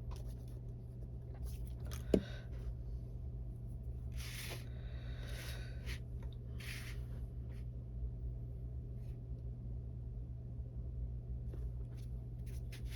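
A stamp being pressed and worked onto cardstock: one sharp tap about two seconds in, then a few short soft scrapes and rustles of paper, over a steady low hum.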